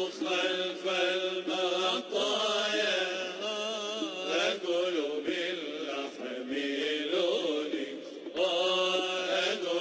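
A man's solo voice chanting an Arabic devotional qasida (nasheed), holding long wavering notes with rich ornamentation and short breaths between phrases, with no instruments.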